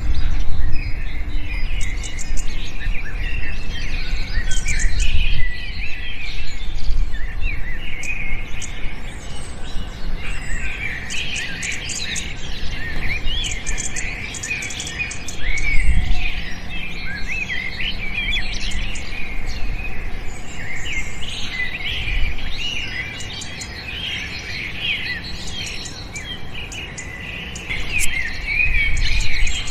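A chorus of small birds chirping, many quick high chirps and trills overlapping without pause. Low rumbles sound underneath now and then.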